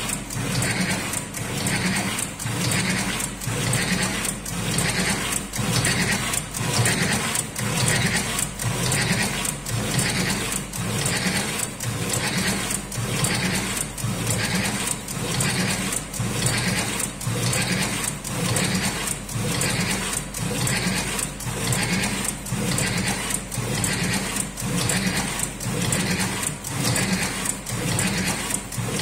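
Electric automatic cigarette rolling machine running, its mechanism cycling evenly a little under twice a second as it fills tubes with tobacco.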